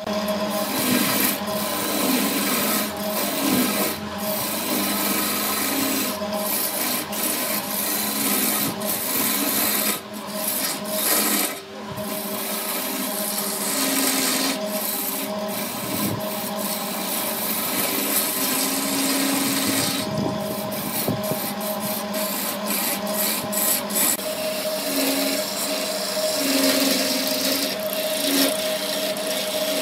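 Wood lathe running with a steady motor hum while a hand-held turning chisel cuts into a spinning wooden blank, a continuous scraping rasp as shavings fly off. The cutting eases off briefly twice near the middle.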